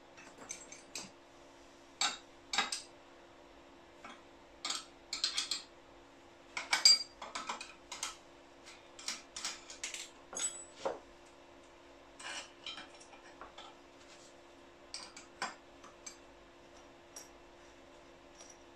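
Scattered clinks and knocks of metal on metal as a cylinder block is handled and unclamped from an angle plate on a milling machine table, over a faint steady low hum.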